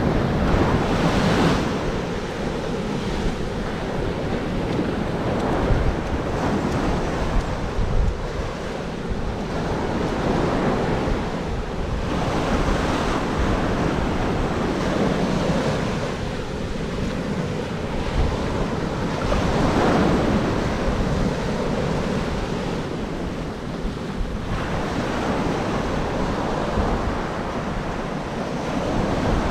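Ocean surf breaking and washing up the beach, swelling and easing every several seconds, with wind buffeting the microphone.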